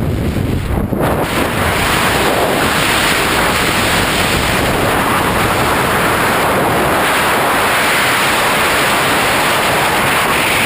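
Loud, steady rush of wind over a camera microphone, as in skydiving free fall.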